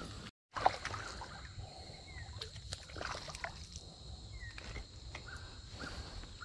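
Soft trickling and sloshing of a shallow creek, with scattered small splashes and clicks, a steady high insect drone and a few short chirps.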